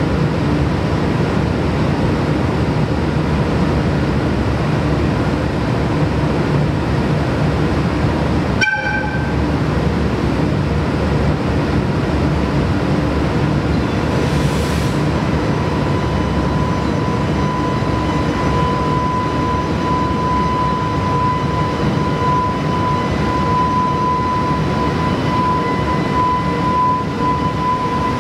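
JR Freight EH500 electric locomotive standing with its machinery running in a steady rumble, giving one short horn toot about a third of the way in. About halfway there is a brief hiss. Then a steady high whine sets in and holds as the locomotive starts to pull its freight train away.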